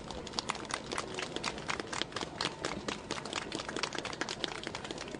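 Small crowd applauding: many separate hand claps, each one distinct.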